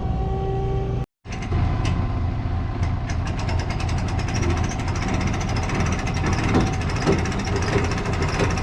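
Engine of a farm machine idling steadily, with a brief total dropout about a second in.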